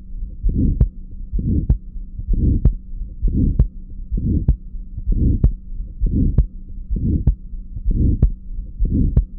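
Heart-sound recording of aortic stenosis: a crescendo-decrescendo systolic ejection murmur that swells and fades between the heart sounds, each beat ending in a sharp click, at about one beat a second. A faint steady hum runs underneath.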